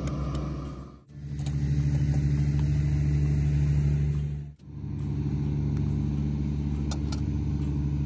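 A steady, even engine hum that breaks off abruptly about a second in and again about four and a half seconds in, each time starting up again at once.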